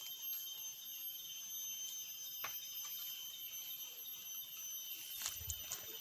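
Steady high-pitched drone of forest insects, with a few crunching footsteps in dry leaf litter about two and a half seconds in and near the end.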